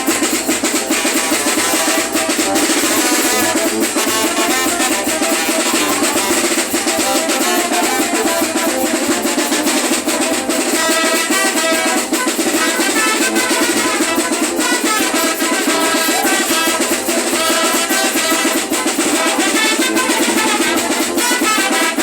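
Mexican brass band (banda) playing carnival music: horns carry the melody over a steady beat of snare and bass drum.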